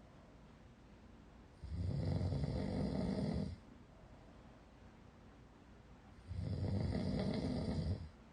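A person snoring loudly, captured by a sleep-tracking app on a phone: two long snores of about two seconds each, a few seconds apart, each starting and stopping abruptly.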